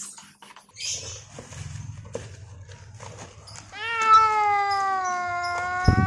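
Domestic cat giving one long, drawn-out meow that starts about four seconds in, rises briefly and then slowly falls. Before it, faint scraping of a stick stirring mortar in a tin, and a low thump near the end.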